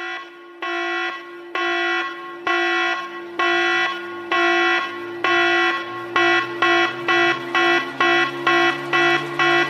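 Electronic beeps at one steady pitch, speeding up from about one a second to about two a second, over a low tone that slowly rises: a build-up sound effect played through a DJ sound system.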